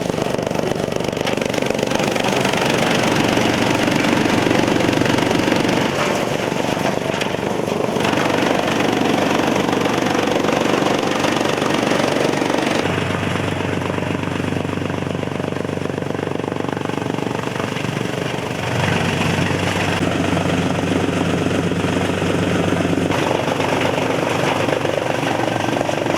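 Motor-driven chaff cutter with a blower running and chopping fodder: a loud, steady mechanical din with a low hum, its character shifting abruptly several times.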